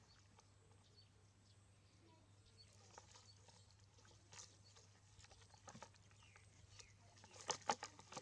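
Near silence with a steady low hum and faint scattered taps, then a quick run of sharper clicks about seven and a half seconds in.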